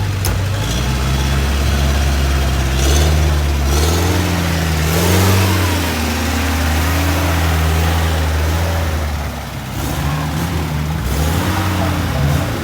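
Off-road 4x4 engine running at a deep, steady drone and revving up and down several times.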